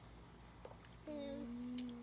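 A child humming one long, steady 'mmm', starting about a second in.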